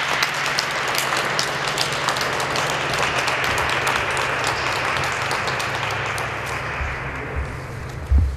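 Audience applauding after a recited poem, a dense clatter of many hands that dies away over the last second or two, over a steady low hum.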